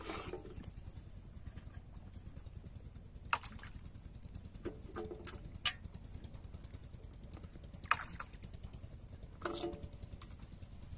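Plastic bottles clattering against an aluminium bowl and dropping onto pond water as they are tossed out one at a time: a handful of short, sharp knocks and light splashes spread through the clip, over a low steady rumble.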